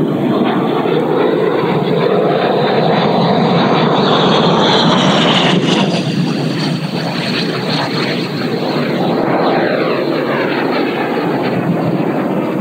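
JETFAN-130 electric ducted fan of a large RC jet model running loud and hard in flight: a steady rushing roar with a high whine on top. The whine slides down in pitch around five to six seconds in as the jet makes a fast low pass.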